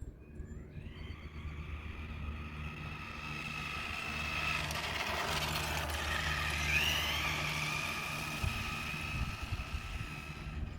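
Stock electric motor and drivetrain of a vintage Futaba FX-10 RC car whining on a full-speed run. The pitch climbs about a second in as it speeds up. It is loudest midway with a brief upward bend in pitch, then grows fainter near the end.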